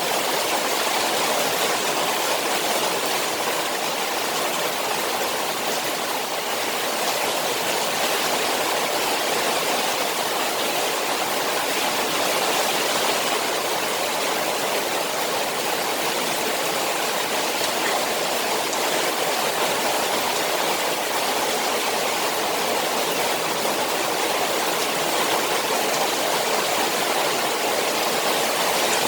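Rain falling steadily on a koi pond: an even, unbroken hiss of water with no pauses or separate splashes.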